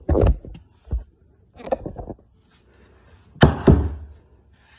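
Several knocks on an IKEA Malm bed's particleboard panel as a round cam-lock fitting is tapped down into its hole, with the loudest two close together about three and a half seconds in.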